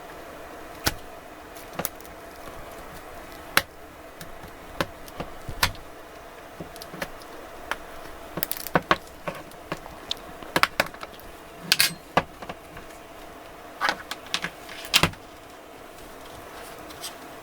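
Irregular sharp clicks and snaps of a tool working the plastic housing of a Samsung Galaxy Tab A T280 tablet, with clusters of quick clicks in the middle and near the end, as its back cover is pried open, over a faint steady hum.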